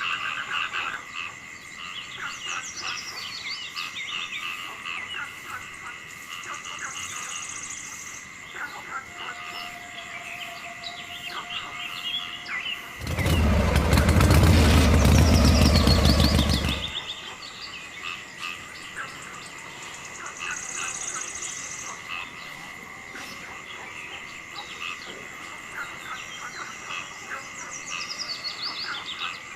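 Outdoor chorus of frogs, insects and birds: a steady high chirring with many short chirps and calls. A little under halfway through, a loud rough noise lasts about four seconds and drowns it out.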